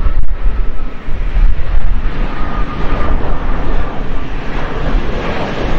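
Airbus A320-family airliner's jet engines on landing approach: a steady rumble with a faint whine for a few seconds early on, mixed with strong wind buffeting on the microphone.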